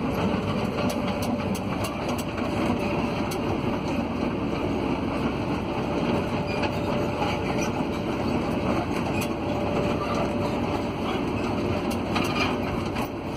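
JCB JS200 crawler excavator travelling on its tracks, heard from inside the cab: the diesel engine running steadily under the clatter of the tracks, with a faint steady whine.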